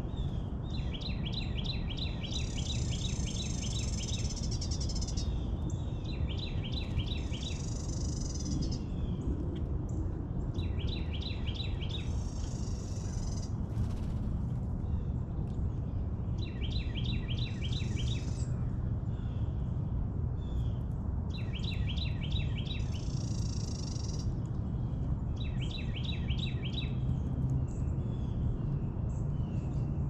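Songbirds singing: a short rapid trilled phrase repeated about every four to five seconds, most times followed by a higher, warbling phrase, over a steady low rumble of background noise.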